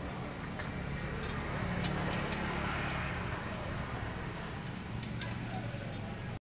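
A few sharp metallic clinks as a white tubular metal clothes-rack frame is fitted together, over a steady outdoor hum with a low drone.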